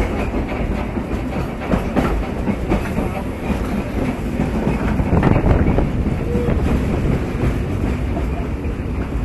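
1920 electric trolley car running along its track, heard from inside the car: a steady rumble and rattle with scattered clicks from the wheels on the rails.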